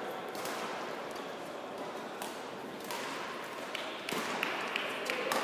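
Badminton rally: sharp racket hits on the shuttlecock, irregularly a second or so apart, with short high squeaks from shoes on the court floor near the end, over the steady hum of a sports hall.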